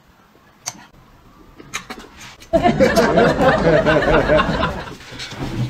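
A few faint clicks, then a sudden loud burst of wavering laughter lasting about two and a half seconds, from about halfway through.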